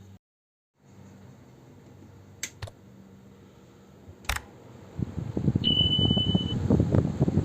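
A few sharp clicks, then a stand fan starts running about five seconds in, its airflow buffeting the microphone with a loud, uneven flutter; a short high beep sounds once as it starts.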